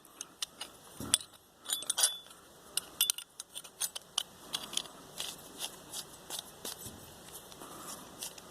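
Light metallic clicks and clinks, many over the whole stretch and a couple louder about one and two seconds in, from the steel parts of a homemade wire-clamp tool (turnbuckle, threaded rod and bolts) knocking together as it is handled.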